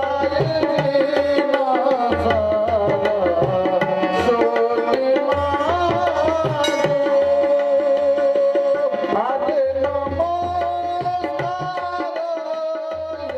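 Devotional bhajan music: a held melody over a steady hand-drum beat.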